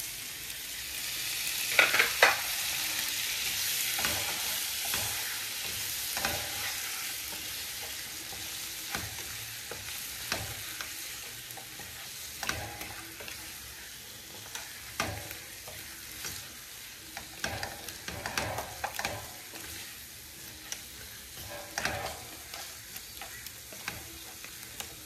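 Beef, onions and peppers sizzling in a frying pan as grated tomatoes go in, with a wooden spatula stirring and knocking against the pan. The sizzle is loudest over the first few seconds, then settles lower as the wet tomato mixes in, with the spatula's clicks and scrapes coming at irregular moments.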